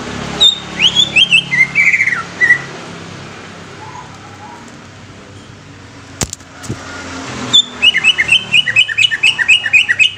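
Green leafbird (cucak ijo) singing: a phrase of loud whistled notes sliding down in pitch, then after a pause a fast run of repeated chirping notes, about six a second. A single sharp click about six seconds in, over a low steady hum.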